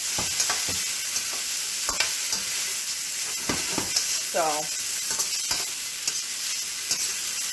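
Pieces of steak sizzling as they brown in a hot pot for a beef stir fry: a steady hiss with occasional clicks and knocks.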